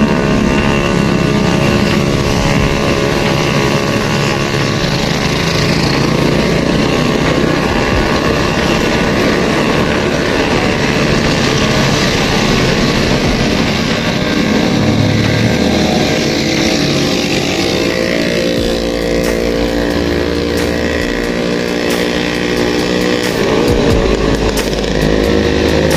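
Road traffic heard from a moving bicycle: motor vehicle engines running close by, with wind rumbling on the microphone.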